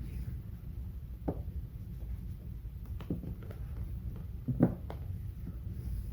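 A squeegee and hands working vinyl wrap film around a cleat on a Tolex case: a few sharp knocks and light ticks, the loudest about halfway through, over a steady low hum.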